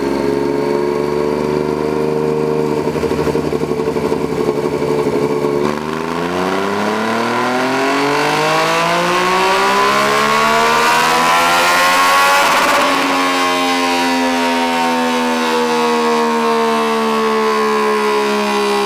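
Yamaha MT-09's 847 cc inline three-cylinder engine through an aftermarket stainless exhaust with a titanium tip. It holds a steady note, then about six seconds in revs up in one long smooth rise without a break for about seven seconds, then falls slowly away as the throttle is closed.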